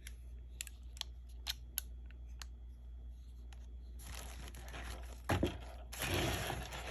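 Packaging being handled during an unboxing: a few light clicks, then crinkling and rustling in bursts over the last few seconds, with a soft knock in between.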